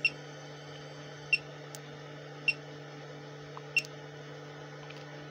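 A bench power supply's voltage control clicking in tenth-of-a-volt steps: four short, sharp clicks a little over a second apart. A steady low hum sits underneath.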